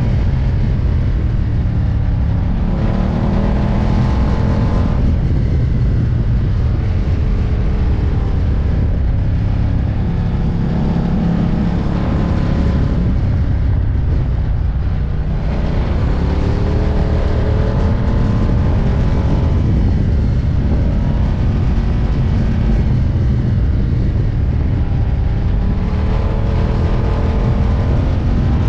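Ducati Diavel's V-twin engine under way, its revs climbing several times as it accelerates out of bends, over a steady low rush of riding noise.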